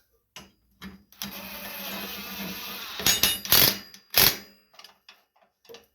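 A small power tool's motor whirs steadily for about two seconds while a steering-gear bolt is driven tight, then several loud metal clanks follow.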